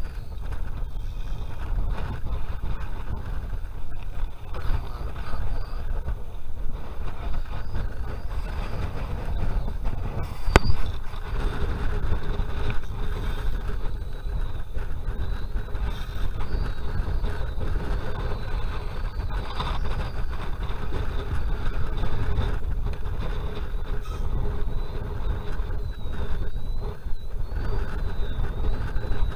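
Steady low rumbling outdoor noise, with one sharp click about ten seconds in.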